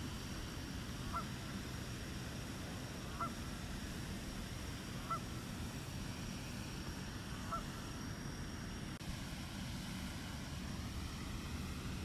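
Four short bird calls, spaced about two seconds apart, over a steady low background rumble. About nine seconds in, a faint drone rises in pitch, like a distant engine.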